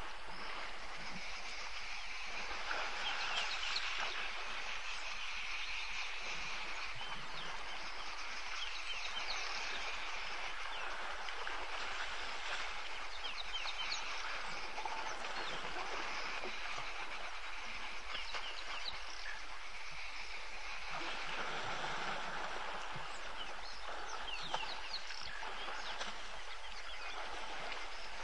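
Natural bush ambience: a steady chorus of calling creatures, with many short bird chirps scattered throughout.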